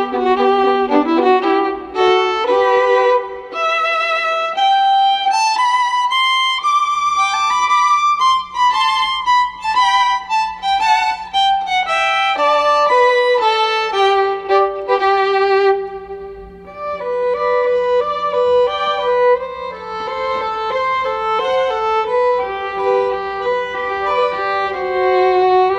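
Background music: a violin playing a melody with vibrato.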